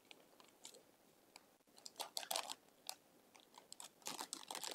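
Reflective heat transfer vinyl being weeded by hand: the cut waste film is peeled off its PET liner, giving faint, irregular crackles and crinkles that are sparse at first and come thicker from about two seconds in.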